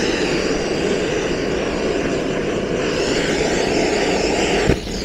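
Gas torch flame burning with a steady, very aggressive hissing roar, opened up too far and hard to regulate. It drops sharply near the end.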